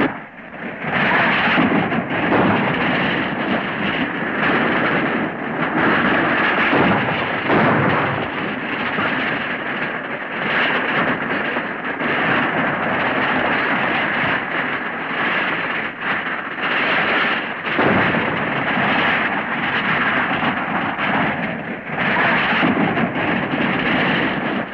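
Horses galloping and a horse-drawn wagon rattling at speed: a dense, continuous clatter of hooves and wheels with irregular sharp knocks, heard through an early-sound-era film track.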